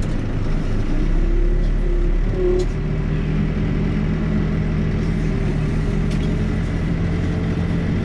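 Diesel backhoe engine running steadily under load while digging a ditch, its note holding level.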